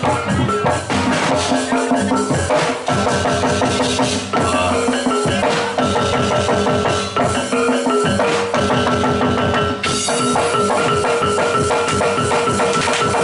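Jaranan gamelan music: dense, fast drumming under sustained pitched notes held for several seconds at a time.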